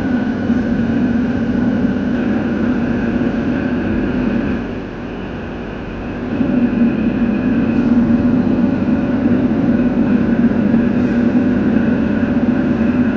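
Steady roar of a wok stove running at full heat, with a faint whine on top. It dips briefly about five seconds in and comes back.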